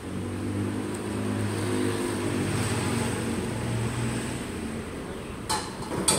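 A motor vehicle's engine running as it passes, its hum and tyre hiss swelling to a peak about two seconds in and then easing off. Near the end come two sharp clicks about half a second apart.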